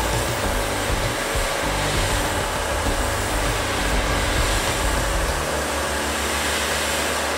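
Electric pressure washer running steadily, its motor droning under the hiss of the water jet spraying a car's roof and windshield.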